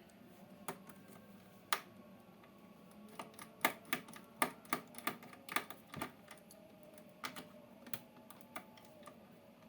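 Irregular small, sharp clicks and taps from hand work on an opened laptop's insides while its battery is being removed, thickest in the middle.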